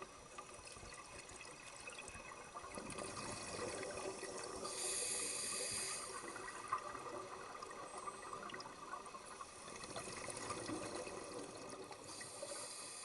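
Water noise, bubbling and sloshing, with two louder hissing rushes of bubbles about five seconds in and near the end.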